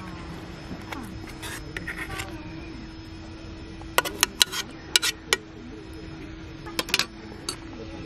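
Metal spoon tapping and scraping against an aluminium mess tin. A quick run of sharp metallic clinks comes about halfway through and a few more near the end, as rice and fried egg are knocked out into a bowl.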